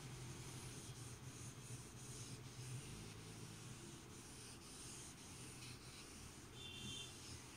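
A whiteboard duster rubbing back and forth over a marker whiteboard, wiping off the writing. Faint.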